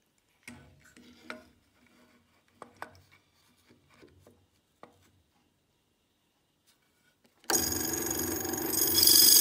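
A few light knocks and clicks as a wooden jig is handled on a drill press table, then about seven seconds in a drill press starts up suddenly, spinning a metal slitting saw blade with a steady, loud whine that grows louder near the end.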